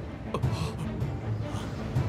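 Film score music with low, steady drum-like pulses. A brief falling sound comes about half a second in.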